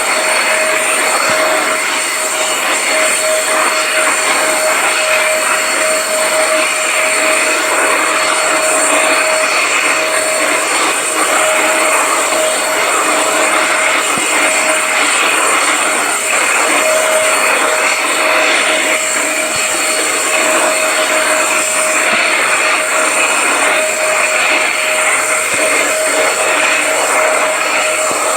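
Electric vacuum cleaner running steadily: a constant airflow rush with a steady motor whine.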